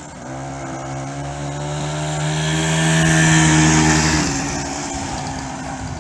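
Small two-stroke K11 motorcycle engine running steadily under way, growing louder for about three seconds and then dropping away after about four seconds. The engine has fresh piston rings that are still breaking in.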